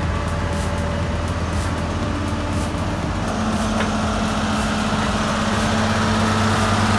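A heavy vehicle or machine engine running steadily with a deep hum; a steady higher tone joins about halfway through.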